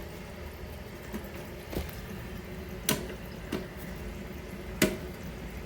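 Toilet tank refilling with water after a flush, a steady running-water sound broken by a few sharp clicks; the toilet is flushing normally now that the blockage is cleared.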